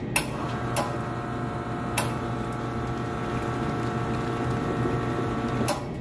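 Espresso machine brewing a single shot: the pump runs with a steady hum for about five and a half seconds, starting with a click just after the button press and cutting off with a click near the end, with a couple of clicks in between. The shot is timed to about five seconds while the machine's single-shot dose is calibrated.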